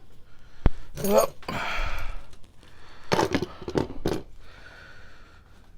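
Handling and opening of plastic Milwaukee Packout tool boxes: a sharp click under a second in, some shuffling, then a few louder knocks and clunks around three to four seconds in.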